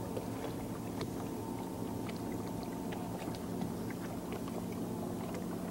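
Boat motor running steadily with a low, even hum.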